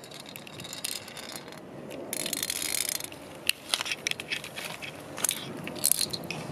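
Handling noise from a camera being moved around by hand: rustling and scuffing, strongest about two to three seconds in, with a few sharp clicks later on.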